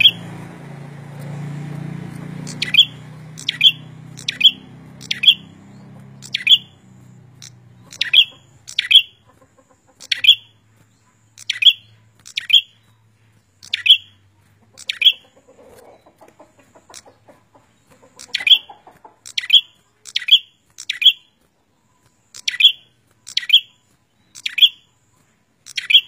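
Caged prenjak songbird calling repeatedly with loud, sharp, clipped chip notes, singly and in quick pairs about once a second. A low background rumble in the first few seconds fades away.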